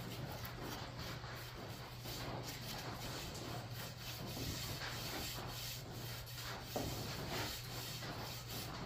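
A bare hand rubbing oil into a wooden axe handle: soft, irregular strokes of palm sliding along the wood, over a steady low hum.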